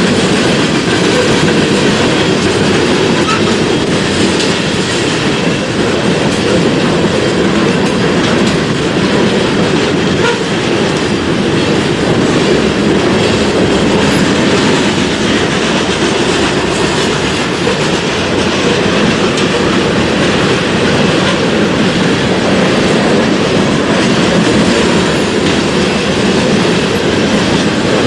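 Freight train rolling past close by, its wheels running on the rails in a loud, steady rumble.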